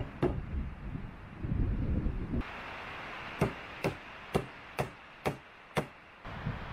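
A short log used as a mallet knocking on the wooden pole frame of a shelter: a couple of knocks at the start, then six sharp, evenly spaced strikes, about two a second.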